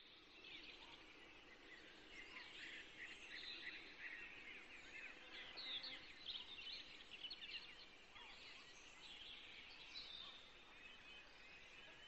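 Faint outdoor ambience with many quick, high chirps of small birds, busiest in the middle.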